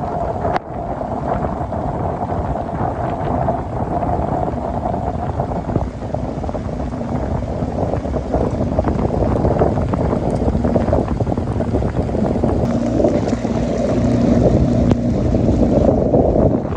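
Small aluminium boat's motor running steadily under heavy wind buffeting the microphone, as the boat crosses a rough, rain-swept lake.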